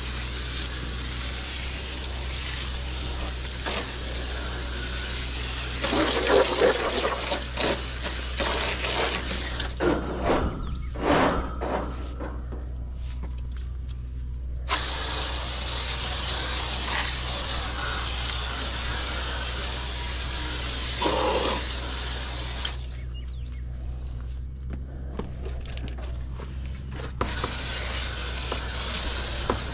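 Garden hose pistol-grip spray nozzle jetting water against an air conditioner condenser coil from inside the unit, a steady hiss of spray: rinsing the coil during a tune-up. The spray stops twice for a few seconds, with a few knocks during the first stop.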